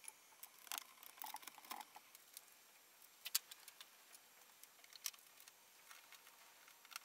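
Faint, scattered metallic clicks and rattles of aluminium brace pivot connectors being slid along and fastened to the T-slot extrusion of a laser cutter lid. The sharpest click comes about three seconds in, with another about five seconds in.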